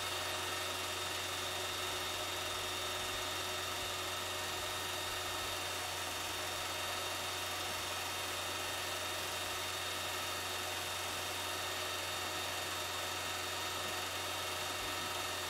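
A steady whirring hum with hiss, unchanging in level.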